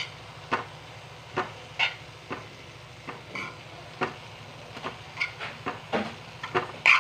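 A spoon stirring and scraping grated coconut in a pan as it roasts, in irregular short strokes about every half second to a second, over a low steady hum.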